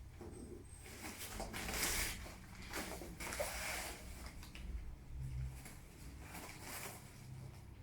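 Irregular rustling with a few light clicks and knocks from hands handling the umbrella and its parts.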